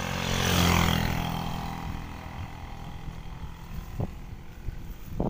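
A small motorbike-type engine running, its note swelling to loudest about a second in and then slowly dying away. A couple of short knocks sound near the end.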